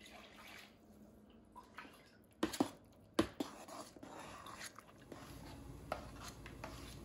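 Corn masa being mixed with chicken broth in a bowl: soft, irregular wet squelching, with two sharp knocks against the bowl about two and a half and three seconds in.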